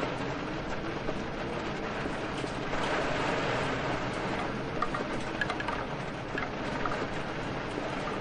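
Steady rain falling, an even hiss with a low rumble beneath it, and a few sharper drop sounds standing out about five to seven seconds in.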